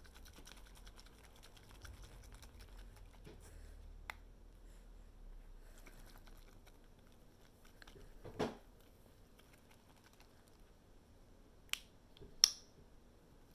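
Quiet room tone with a faint click, then a dull thump about two-thirds of the way through; near the end two sharp plastic clicks as the cap of a paint bottle is snapped open, the second the loudest.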